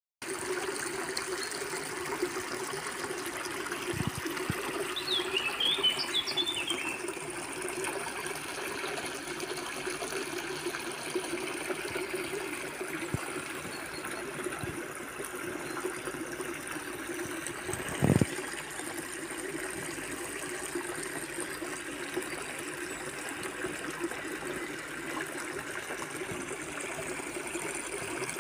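Water running steadily over a small weir or sluice into a pond, a continuous rushing trickle. A bird chirps briefly a few seconds in, and there is a single short knock about two-thirds of the way through.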